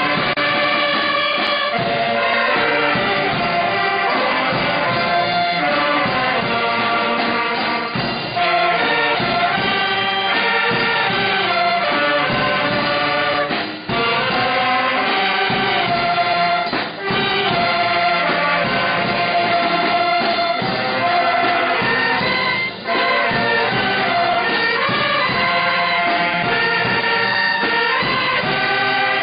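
Brass band with saxophones playing a tune outdoors, with the melody carried in unison and a few brief breaks between phrases.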